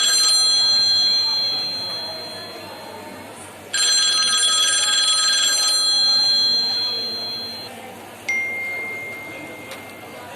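A classic telephone bell ringing in a rapid trill, twice, each ring lasting about two seconds and then dying away. About eight seconds in, a single metallic ding rings on with one clear tone.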